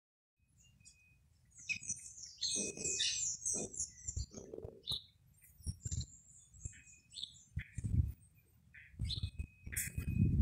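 Small birds chirping, many short high calls in quick clusters, with intermittent low rumbles underneath.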